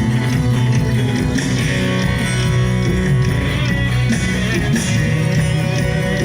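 Amplified live band music through a stage PA, with a steady, prominent bass line under dense instrumental parts.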